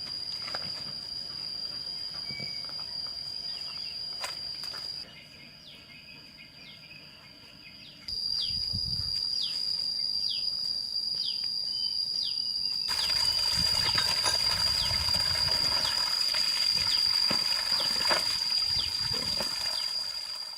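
Insects singing one steady, unbroken high-pitched note. Short falling chirps come in over it in the middle, and the overall level jumps up and down abruptly a few times.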